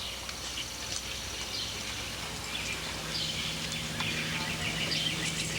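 Birds chirping faintly over open-air background noise, with a low steady hum coming in about two seconds in.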